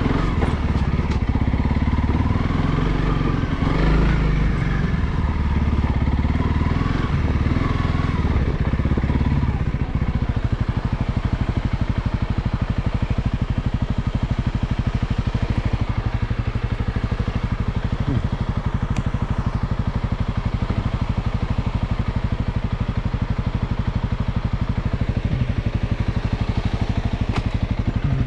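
Honda CRF300L's single-cylinder four-stroke engine running, working and changing pitch for about the first ten seconds, then settling into a steady, even idle.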